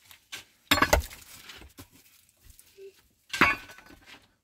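Picks and mattocks striking stony, rocky ground while digging: two hard clinking strikes about two and a half seconds apart, with a few lighter knocks of loose stones between.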